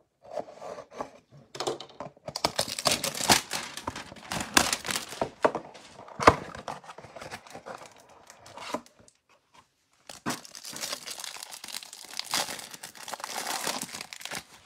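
Cardboard hanger box of trading cards being cut open with a utility knife and torn open, with crackling, tearing and one sharp snap a little past halfway; after a short pause, the cellophane wrapper around the stack of cards is crinkled and torn open.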